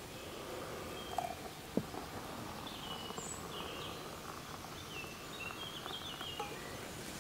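Liquid poured in a thin stream from a camping-stove cooking pot into an enamel mug, with two small knocks a little after a second in. Birds sing faintly in the background.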